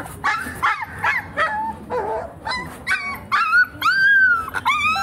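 Puppy whimpering and yelping in a quick series of short, high-pitched cries, with one longer, steadier cry about four seconds in.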